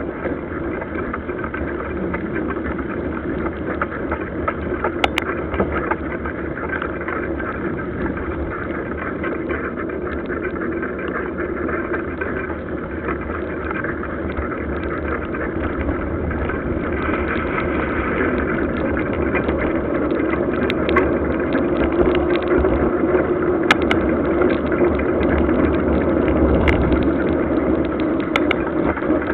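A mountain bike rolling fast on wet asphalt, heard from a camera mounted on the bike: a steady rush of tyre and wind noise that grows a little louder about two-thirds through, with a few sharp knocks from the bike.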